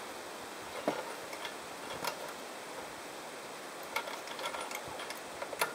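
A handful of light clicks and taps, spaced a second or two apart, as small parts of a dismantled camping stove and cookware are handled and set down on a wooden picnic table, over a steady faint outdoor hiss.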